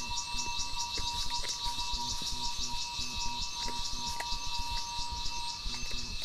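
Crickets chirping in fast, even pulses, about eight a second.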